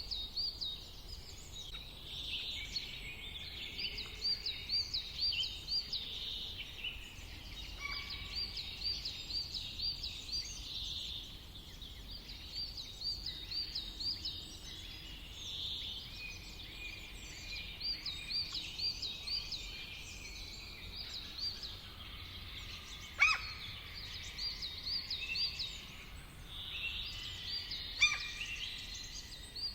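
Several songbirds singing together, one repeating a quick run of high, even notes again and again every few seconds. Two sharp clicks stand out, one about two-thirds of the way through and one near the end.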